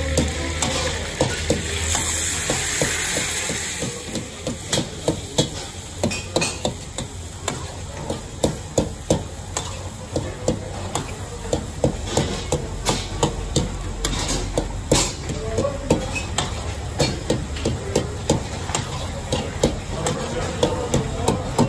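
Metal ladle stirring chicken karahi in a black karahi wok over high heat: a steady sizzle of frying sauce under rapid clanks and scrapes of the ladle against the pan, about two to three a second.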